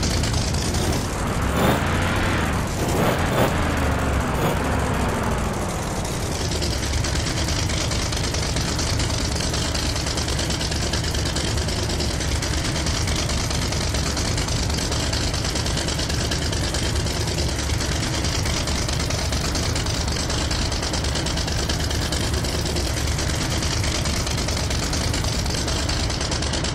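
Motor vehicle engines: for the first six seconds or so the engine note rises and falls, then it settles into a steady low idle.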